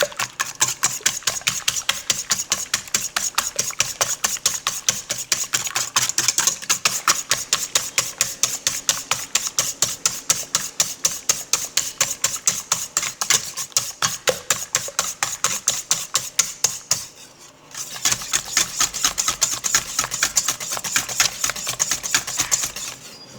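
Beater clattering fast and evenly against a bowl as egg yolks are beaten until light yellow, about five clicks a second, with a brief stop about 17 seconds in.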